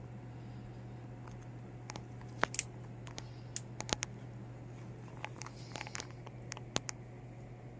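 A Syrian hamster scrabbling about, its claws making scattered sharp clicks and light scratching on wire mesh and fabric, with a steady low hum underneath.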